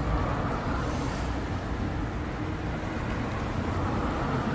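City street traffic noise, cars passing on the road, picked up by a Samsung Galaxy Note 10+ 5G's microphone while it films.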